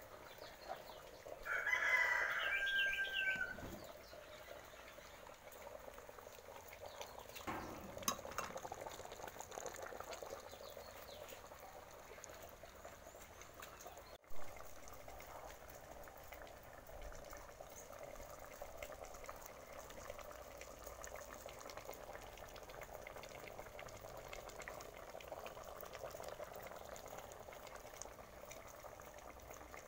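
A rooster crows once, about two seconds in, ending on a held note, over faint steady background noise.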